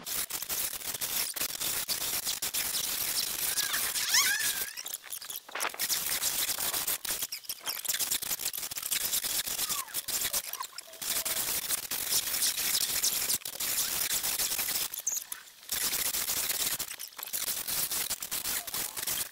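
Plastic wrap being pulled off its roll and drawn tight round a canoe frame: a continuous crackling hiss, broken by a few short pauses.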